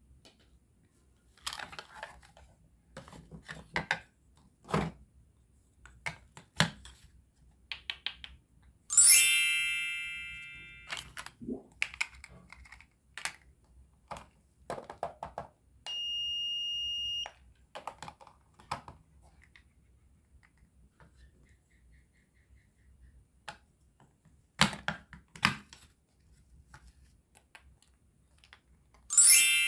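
Toy cash register played with by hand: light clicking key presses and plastic clacks, a bright ringing chime about nine seconds in that dies away over a second or so, a steady electronic beep lasting just over a second around the middle, and a second chime near the end. Toward the end, pieces of toy food knock together as they are handled.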